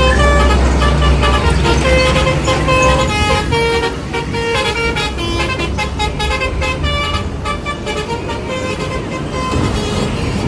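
A bus's telolet horn, a set of musical air horns, playing a quick run of short notes that change pitch, over the low rumble of the engine, which eases about four seconds in.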